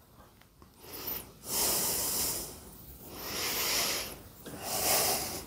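A person breathing heavily through the nose while working, three long breaths of about a second each that swell and fade.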